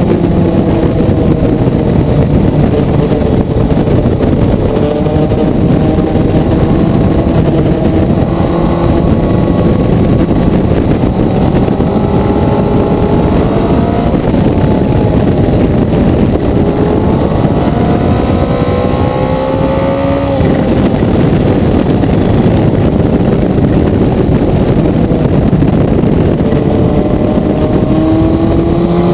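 Motorcycle engine heard from on board while riding, its pitch climbing under acceleration and dropping back several times, with a sharp climb and fall a bit past two-thirds of the way in. A loud rush of wind runs under it.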